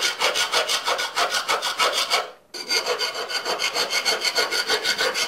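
Hand file rasping across the freshly cut end of a square steel tube in quick, regular strokes, about five a second, smoothing off the cut edge. The filing breaks off briefly about halfway through, then carries on.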